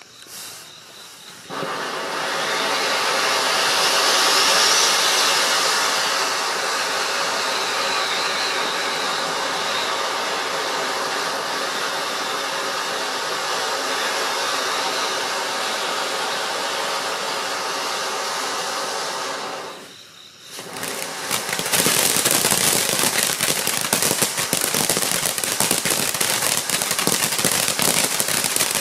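Ground fountain firework burning: a steady rushing hiss of spraying sparks starts about a second and a half in. About 20 seconds in it dips briefly, then the next stage comes in louder, with dense rapid crackling.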